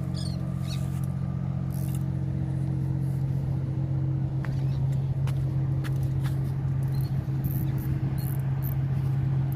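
A steady, low engine drone, even in pitch throughout, with a few light clicks about halfway through.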